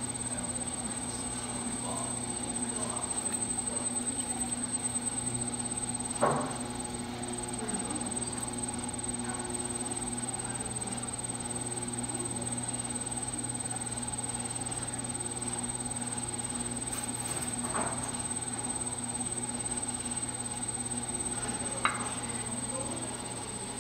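Electric potter's wheels running with a steady hum and whine, broken by three short sharp knocks, the loudest about six seconds in.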